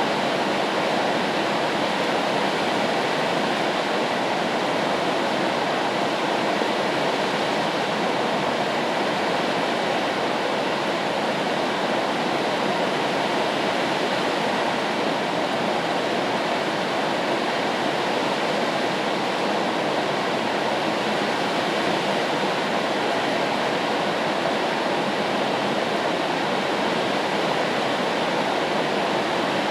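Steady, even rain noise used as white noise, with no single drops or gusts standing out.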